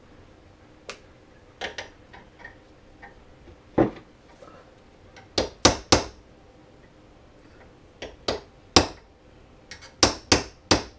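Hammer tapping a steel punch to drive the roller pin through a new roller on an Arctic Cat roller secondary (driven) clutch. A few light taps come first, then sharper strikes in groups of two or three, and near the end a quick even run of strikes, about three a second.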